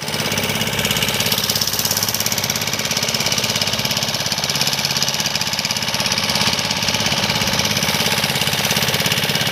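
A fishing boat's motor running steadily under way: a fast, even chugging that never lets up. A steady hiss of water rushing past the hull runs over it.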